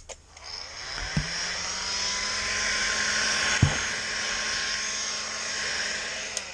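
Heat gun running, blowing hot air along the edges of the back glass to soften its adhesive: a steady fan whine over a rushing hiss that starts just after the beginning and cuts off near the end. Two light knocks come about a second in and midway.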